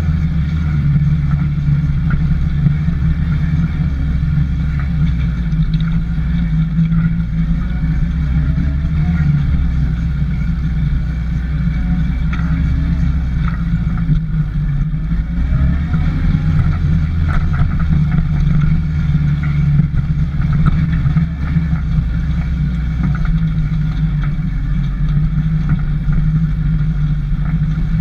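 Motorcycle engine running steadily as the bike is ridden, its low note rising and falling a little with the throttle.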